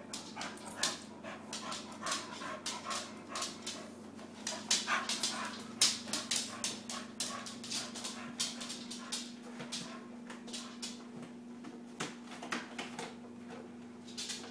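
Schnauzer puppy panting and scampering about, with many quick irregular clicks and scuffles. A faint steady hum runs underneath.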